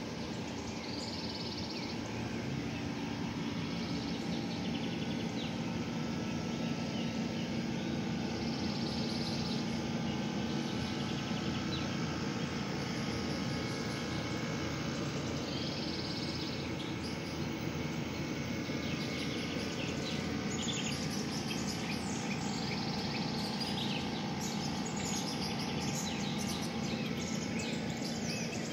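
Outdoor ambience: a steady low background hum with small birds chirping, the chirps growing busier in the second half.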